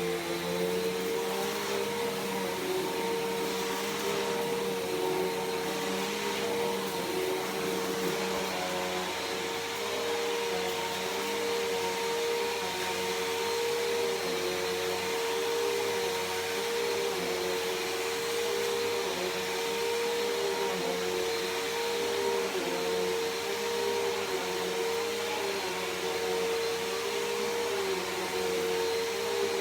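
Bissell PowerForce Helix Turbo upright vacuum cleaner running steadily on carpet, its motor whine wavering slightly in pitch as it is pushed back and forth.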